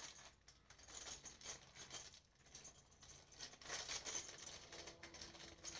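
Faint rustling and light clicking of a small plastic parts bag and metal hinge pieces handled in the hands, a little busier around the middle.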